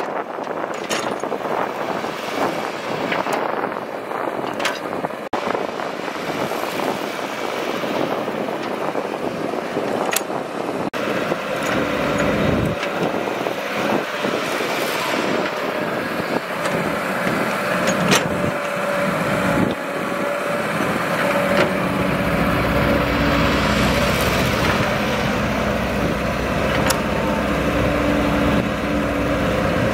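Diesel engines of a Caterpillar tracked excavator and a loaded dump truck running under load, with dirt being dumped and scattered knocks. About halfway through, a steady engine drone comes in and the sound grows a little louder.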